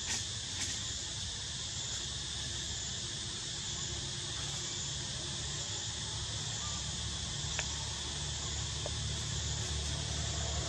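Steady high-pitched chorus of insects, crickets or cicadas, buzzing without a break, over a low rumble, with a few faint ticks.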